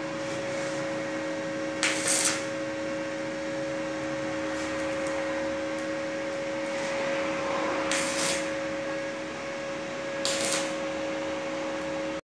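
Steady two-tone electrical hum, with three short hissing bursts about two, eight and ten seconds in as a TIG welding torch strikes its arc to tack-weld a stainless steel pillar.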